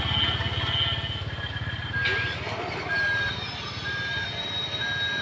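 Remote-control toy dump truck's electronic sound effects: a simulated diesel engine running as a fast low chugging, with a reversing alarm joining in about two seconds in, a short high beep about once a second, as the truck backs up.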